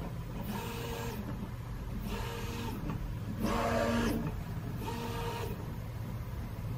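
Prusa i3 MK3S+ 3D printer running its automatic bed-alignment check: its stepper motors whine in five short moves about every second and a half as the head steps from one probe point to the next, over a steady low hum.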